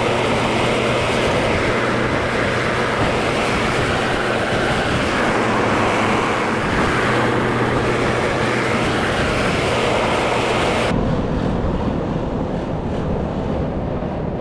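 Air-conditioner outdoor condensing unit running: a steady rush of air from the condenser fan over a low compressor hum. The upper part of the rush drops away suddenly about eleven seconds in.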